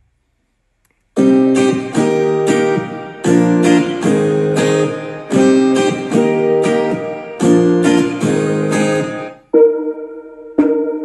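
A plucked guitar part playing rhythmic chords for an Afro-pop beat, starting after about a second of silence. Near the end it gives way to a cleaner plucked tone repeating about once a second.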